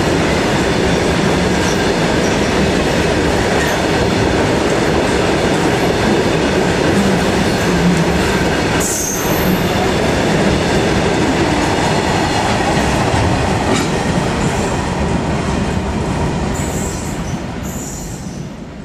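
Freight train of BCNA covered wagons rolling past close by, a steady rumble of wheels on the rails, with a brief high wheel squeal about nine seconds in. The sound fades away over the last few seconds as the end of the train draws off.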